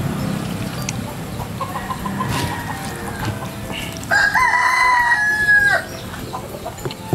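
A rooster crowing: a loud call about a second and a half long, held on one pitch, about four seconds in. A fainter crow comes a couple of seconds before it.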